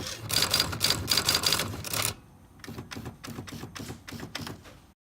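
Typewriter typing in rapid key strikes, loud for about two seconds, then lighter and sparser strikes, cutting off suddenly to dead silence near the end.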